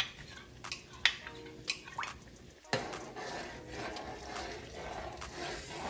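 A metal spoon clinks several times against a small glass bowl as a cornstarch-and-water slurry is stirred. After that comes a steady wet sound as the slurry is poured into a pot of simmering sauce.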